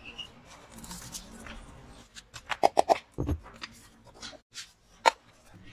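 Sharp metal clicks and light knocks from a piston ring compressor and engine parts being handled: a quick run of four or five clicks about two and a half seconds in, lighter ticks around it, and one sharp click near the end.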